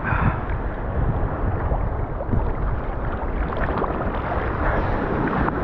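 Wind blowing across the microphone over choppy surf water sloshing close by: a steady noise strongest in the low end.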